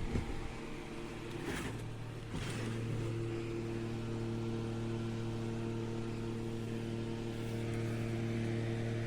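Small rechargeable camping fan running, a steady electric-motor hum with an air whoosh that sets in about two seconds in after a couple of short clicks.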